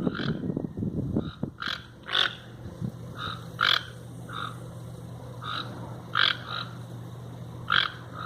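Toucan giving a series of short, hoarse, croaking calls at irregular intervals, about ten in all, over a steady low hum.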